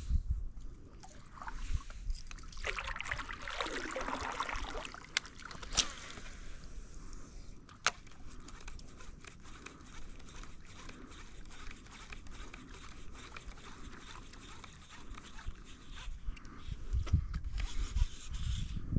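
Quiet water sloshing and trickling against a kayak hull, with scattered small clicks and knocks. There is a brief swell of splashy noise a few seconds in.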